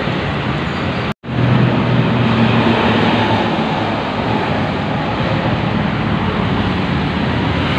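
Busy city road traffic, cars and motorbikes going by. After a sudden cut about a second in, a large diesel coach bus drives past at speed, its engine running with a low steady drone over the road noise.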